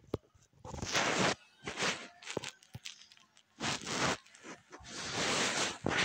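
Rustling and handling noise in about six irregular short bursts, with no voice or call among them.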